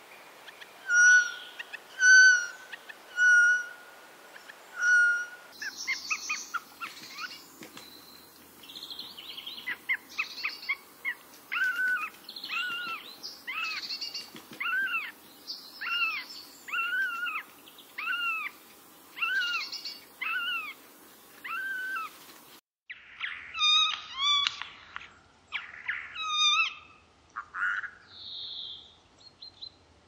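Eurasian jay song played from recordings: first a few short repeated notes about a second apart, then a soft, varied chattering song with a run of arched notes about one a second, then a few sharper notes. The recording changes twice, after about five seconds and again after about twenty-two seconds.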